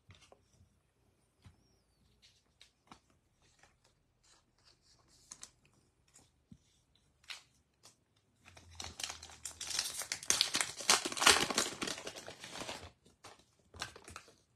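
A Topps baseball card pack's wrapper being torn open and crinkled: a dense crinkling rustle that starts about eight seconds in and lasts some four seconds. Before it, scattered light clicks of trading cards being handled and set down, and a few more card clicks near the end.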